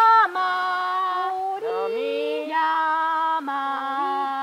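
Singers calling out plant names in long, held sung cries, one voice after another at different pitches, with a higher and a lower voice briefly overlapping. The first note is the loudest and breaks off just after the start.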